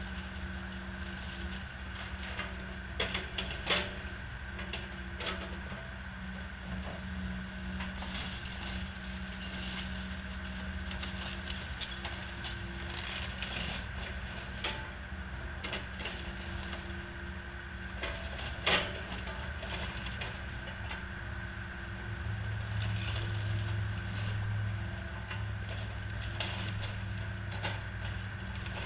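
John Deere compact excavator's diesel engine running steadily while it crushes and splinters the wooden framing of a mobile home. Scattered cracks and crunches, with the loudest sharp cracks about three to four seconds in and again just before halfway. A louder, deeper engine hum sets in about two-thirds of the way through.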